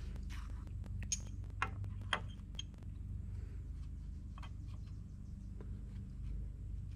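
A few light clicks and taps of small parts and hand tools being handled, mostly in the first half, over a steady low hum.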